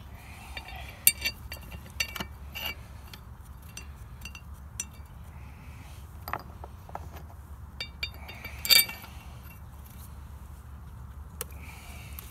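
Scattered light metallic clinks and taps of bolts and metal pump parts being handled and set in place while a jet pump is reassembled, with a few sharper knocks, the loudest about a second in and again near the end.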